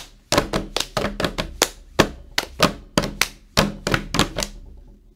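Drum beat of a rap backing track between verses: sharp percussive hits at about four a second over a steady low bass note. The beat stops about four and a half seconds in.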